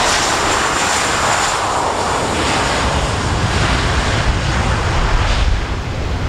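Jet engines of an Airbus A320-family airliner rolling along the runway past and away, a loud steady rushing noise whose pitch falls as it goes by.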